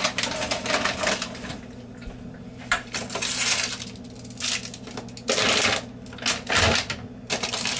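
Snack packages and drinks being handled and packed into a bag: crinkling of wrappers with irregular clicks and knocks.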